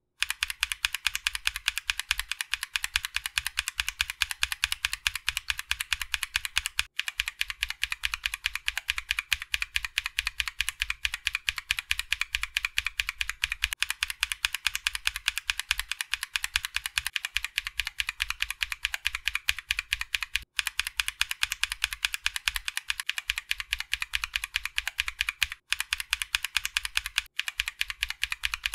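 Fast, continuous typing on a mechanical keyboard built with lubed Feker 'Holy Panda' clone tactile switches, a polycarbonate plate and an aluminium Tofu65 case. It stops briefly a few times.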